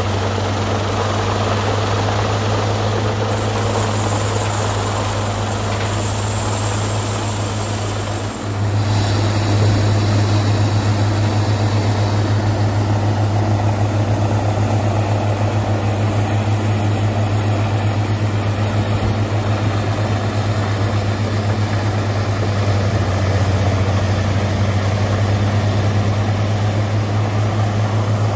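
Peterson 5900E horizontal wood grinder running, its heavy diesel engine droning steadily with a deep hum. The sound dips briefly about eight seconds in, then carries on slightly louder.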